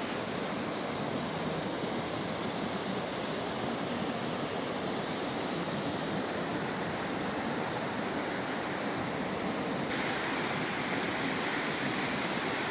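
Steady rush of a fast mountain river tumbling over rocks in white-water rapids. The rush turns a little brighter about ten seconds in.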